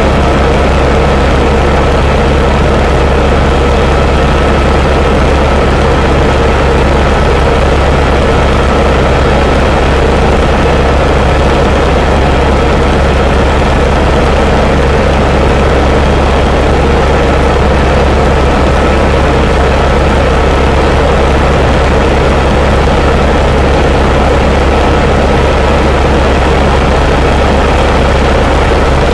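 Helicopter in cruising flight: loud, steady drone of the rotor and turbine engine, with a constant high whine over a deep low rumble.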